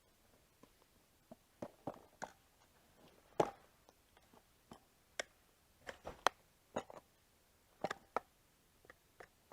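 Irregular clicks and taps of flathead screwdrivers against a stroller wheel's rim and tire as the tire is pried off the rim, with a louder knock about three and a half seconds in.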